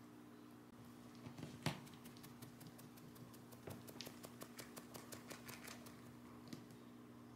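Cat licking its fur, a quick run of faint, soft rasping clicks about five a second. One sharper, louder click comes about a second and a half in.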